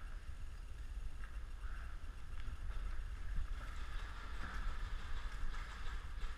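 Steady low rumble of handling and wind noise on a body-worn camera's microphone as the wearer walks, with faint footsteps on a gritty concrete floor.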